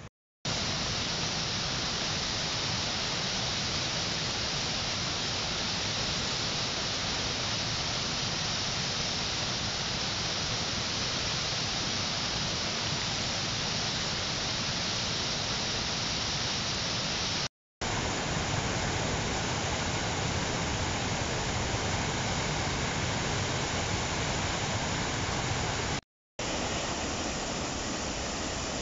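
Spring floodwater pouring through dam spillway gates and churning into whitewater rapids: a steady, loud rush of water. It drops to silence for a moment three times: near the start, about two-thirds in, and near the end.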